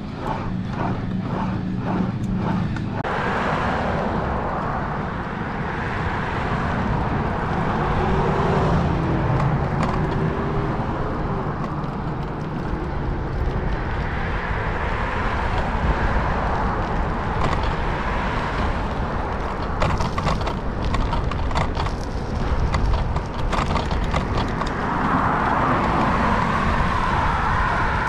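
Steady rushing of wind and road noise from riding an Elliptigo elliptical bike uphill, with a light regular ticking about twice a second over a low hum for the first three seconds.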